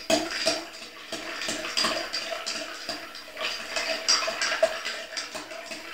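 Bar spoon stirring ice in a glass mixing glass: a steady run of light clinks and rattles of ice against the glass.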